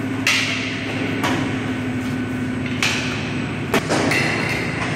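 Four sharp metal clanks, spaced irregularly, as the steel moulds of a PU shoe-sole moulding machine are handled and clamped. A steady machine hum runs under them.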